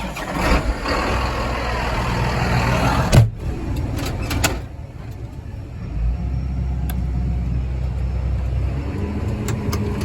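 Tractor engine running, with a sharp knock about three seconds in, settling into a low steady hum about six seconds in.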